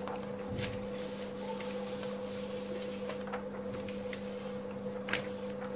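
Faint taps and rubbing from plastic keyboard parts being handled while the membrane sheet is fitted back over the rubber domes, over a steady low hum.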